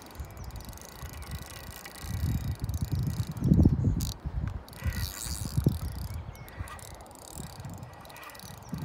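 Salmon fishing reel's click-and-pawl check ratcheting while a hooked salmon is played, with uneven low rumbling over it that is loudest about three and a half seconds in.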